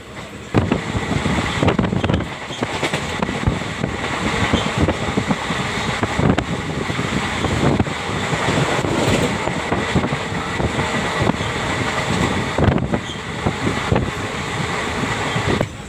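Passenger train running at speed, heard from an open coach door: a loud, steady rush of wheels on rails and air, with sharp knocks from the wheels at irregular moments and wind on the microphone. It starts abruptly about half a second in and drops away near the end.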